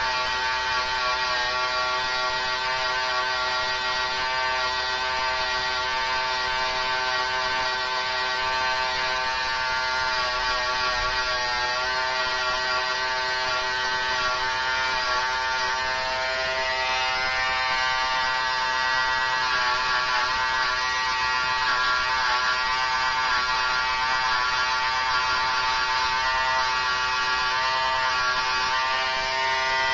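Electric hair clippers running with a steady buzz while cutting line designs into short hair.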